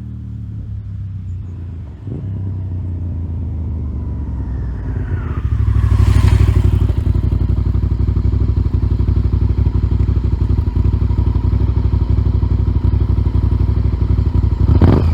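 Honda VTR1000 Firestorm's V-twin engine running through aftermarket Remus end cans. It gets louder about two seconds in and again around six seconds in, then holds steady, with a short sharp burst near the end.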